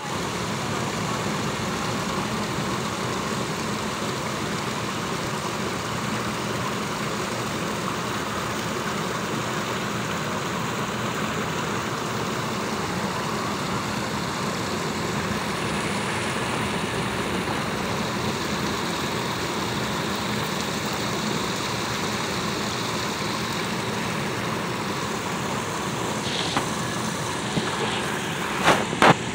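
Water from a tiered stone fountain splashing down its steps into the pool: a steady wash of noise. Near the end come a few sharp knocks from the phone being handled.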